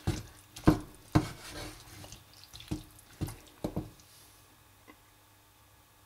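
Wooden spoon stirring a thick, wet mixture of corn kernels and sauce in a saucepan: an irregular run of sharp knocks and wet sounds that stops about four seconds in.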